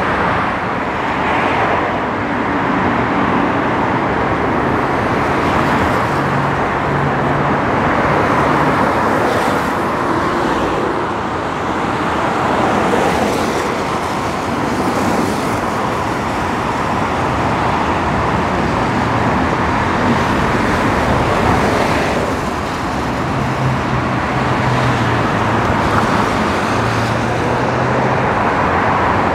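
Steady freeway traffic: a continuous wash of tyre and engine noise from many cars on rain-wet pavement, with a low engine hum from passing vehicles coming up about a quarter of the way in and again near the end.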